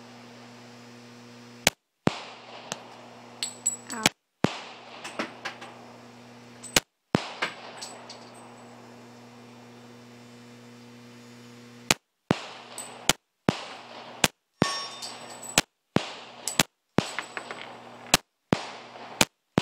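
Glock 22 Gen 4 .40 S&W pistol firing Federal 180-grain full-metal-jacket rounds: a dozen or so sharp shots, many in quick pairs, with a pause of several seconds in the middle. The phone's recording drops out for a moment after the loudest shots, and fainter metallic clangs of steel targets being hit come between some of them.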